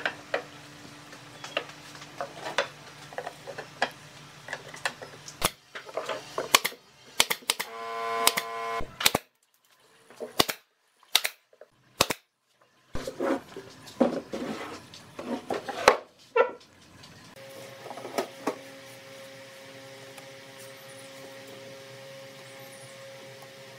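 Knocks and taps of pine boards being set into a frame, a cordless drill running for about a second while driving a screw, then a run of sharp clicks and taps. A steady faint hum takes over for the last few seconds.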